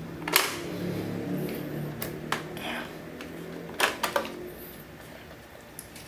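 Sharp plastic clicks and snaps from the main-brush cover of a Xiaomi Mi Robot Vacuum being unclipped and lifted off by hand: one click just after the start, then pairs of clicks about two and four seconds in.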